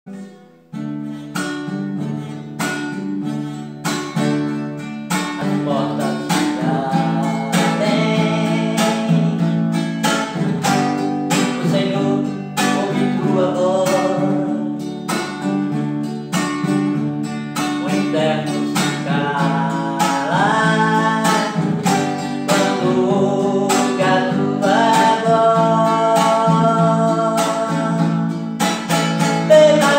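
A man singing a Portuguese worship song while strumming an acoustic guitar in a steady rhythm. The guitar plays alone at first, and his voice comes in about five seconds in.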